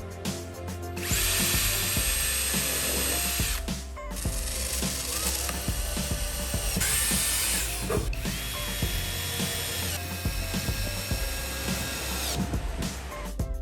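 Small electric power tool motor running in several spells of a few seconds each, its whine sliding up as it spins up and down as it stops, over background music.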